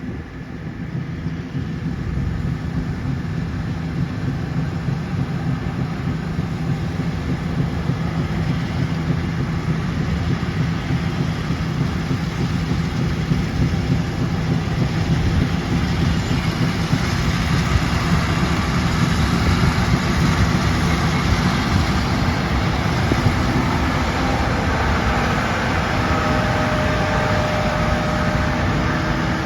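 John Deere S780 combine running steadily while cutting wheat: a continuous low engine hum with machinery noise, growing gradually louder and brighter.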